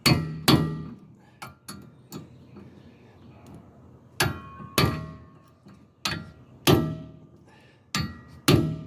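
Hammer blows on a hand impact driver to set the bolts: about a dozen sharp metallic strikes, mostly in pairs, each ringing briefly.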